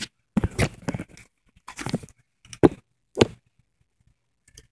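Handling noise on a phone's microphone as the phone is fumbled with: several short rustles and bumps, two of them sharper knocks near the middle.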